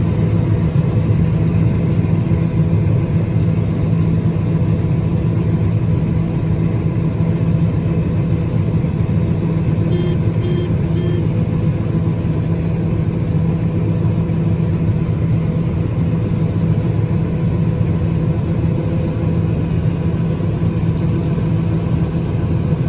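Large diesel engine of farm harvest machinery running steadily at an even speed. Three short high beeps sound about ten seconds in.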